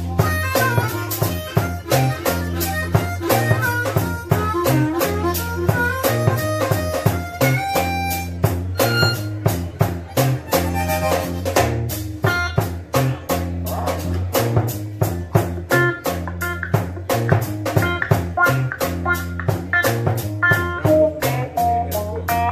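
Live electric blues band: a harmonica played into a vocal mic leads over a steady drum beat and a repeating low riff.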